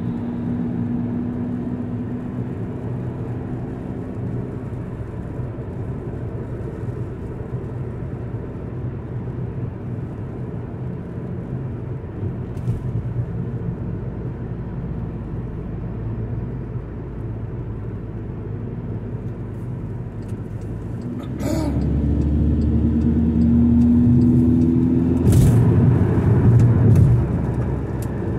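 Car engine and road noise heard from inside the cabin, running steadily. About three-quarters of the way through it grows louder and the engine note rises as the car speeds up, then eases off near the end.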